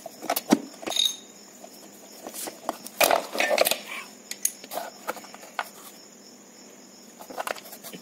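Irregular metal clicks and clinks of a socket wrench working a bolt loose, then the loose bolt and its washer being handled and lifted out.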